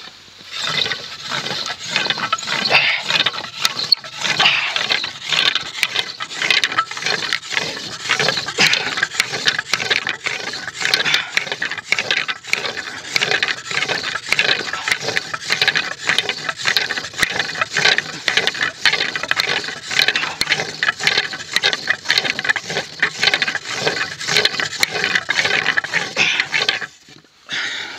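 Pump drill with a heavy disc flywheel spinning a wooden spindle into a wooden board: a rough grinding and squeaking of wood on wood that swells and fades in a steady rhythm with each pump stroke. It stops suddenly about a second before the end.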